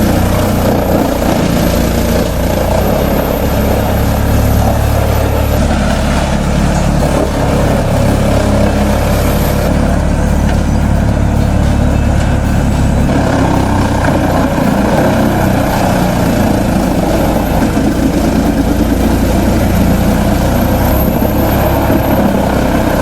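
Heavy diesel machinery running steadily and loudly, a low engine drone with mechanical noise over it; the sound changes character about halfway through.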